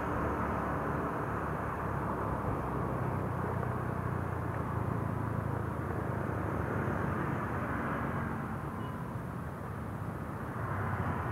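Yamaha scooter engine running steadily at road speed, with wind and road noise and a low hum; it eases off about eight seconds in and picks up again near the end.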